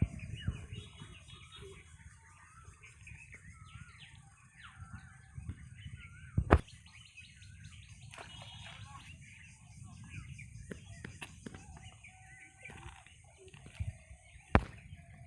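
Birds chirping and calling in many short, quick notes over a steady high hiss, with two sharp knocks, one about six seconds in and one near the end.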